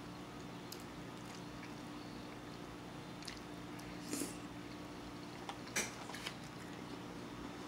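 Eating sounds: faint chewing with a few soft clicks and scrapes of a plastic fork against a foam takeout container, the sharpest click about six seconds in, over a steady low hum.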